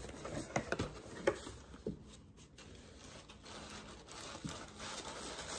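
Pastry packaging being handled and opened: a few light clicks and knocks in the first two seconds, then soft, faint rustling.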